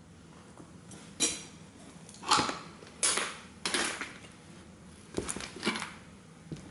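Black Altercore combat boots treading on the flattened scraps of a tin toy car on a wooden board: about six short metallic crunches and clinks, the loudest a couple of seconds in.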